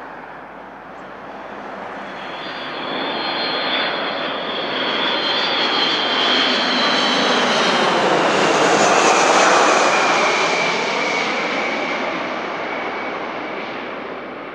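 Boeing KC-135 Stratotanker's four turbofan engines on landing approach, passing low overhead. The jet roar builds to a peak about two-thirds of the way through and then fades as it moves away, with a high fan whine that drops in pitch as it goes by.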